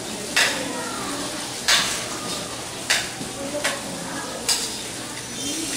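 Chayote and onion sizzling in an aluminium wok as a spatula stirs them. The spatula knocks and scrapes against the pan five times, about a second apart, over a steady frying hiss.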